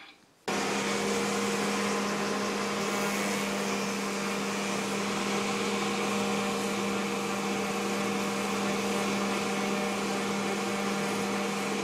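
Wood router with a carbide bit running steadily, carving a wooden hammer handle blank mounted in a lathe copier jig. It starts abruptly about half a second in and stays even throughout.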